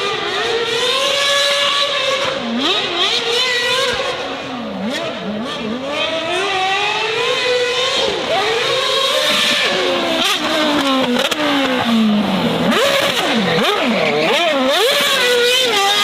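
Racing car engines revving hard, the pitch repeatedly climbing and dropping back as they accelerate and shift gears, with one long falling sweep past the middle.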